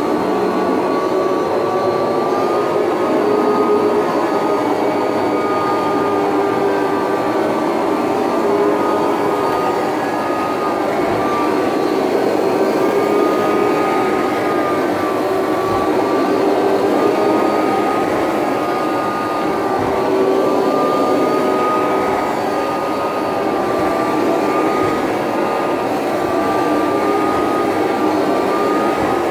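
Late-1980s Kirby Heritage II upright vacuum motor running steadily while driving its Rug Renovator carpet-shampoo attachment. It gives an even, loud whine whose pitch wavers slightly up and down.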